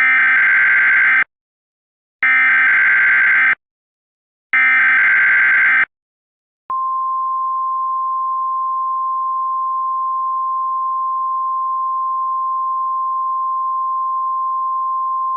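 Emergency Alert System SAME header: three bursts of screeching digital data tones, each about a second and a half long. About 7 seconds in, the steady single-pitch NOAA Weather Radio warning alarm tone begins and holds. Together they announce a new weather warning.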